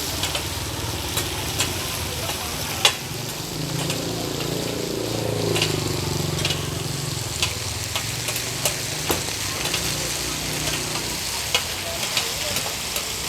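Bột chiên, cubes of rice-flour cake, sizzling in hot oil in a giant flat pan, with the sharp click and scrape of a metal spatula every so often. A low hum swells and fades through the middle.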